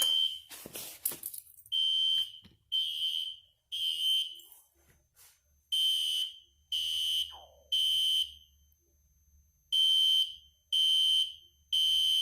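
System Sensor Spectra Alert Classic fire alarm horn sounding in code 3 (temporal-three) pattern: three short, high-pitched blasts about a second apart, then a pause, repeating. The FCI MS-2 pull station has just been pulled into alarm, and the pull station clatters and clicks about a second in.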